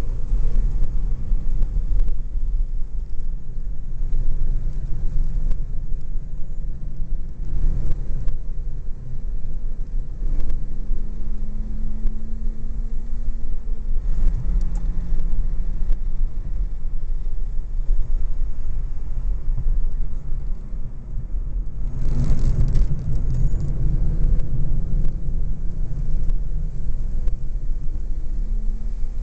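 Heavy wind rumble over a supercharged BMW E46 M3's straight-six driving at speed on track. The engine note is faint underneath and rises in pitch a couple of times, with a louder surge about three-quarters of the way through.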